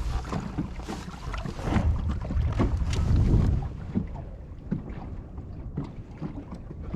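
Low rumble and wind noise from a boat moving on the water, easing off about three and a half seconds in, followed by a few light knocks.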